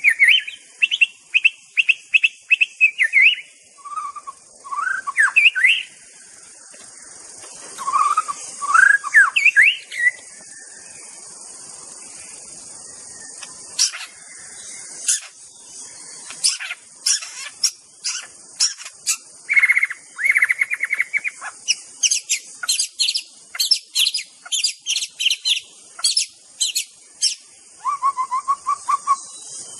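White-rumped shama (murai batu) singing a varied song. Whistled phrases and rising glides come in the first part, then many quick, sharp high chirps, all over a steady high hiss.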